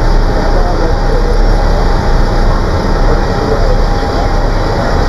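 Loud, steady rumble of city street traffic.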